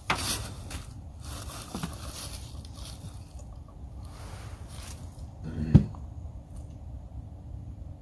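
Rustling and scraping of a hooded jacket against the side of a wooden beehive box as a beekeeper presses his head to it to listen for a live winter colony, with scattered small clicks and a low steady rumble underneath. A single louder knock comes a little before six seconds in.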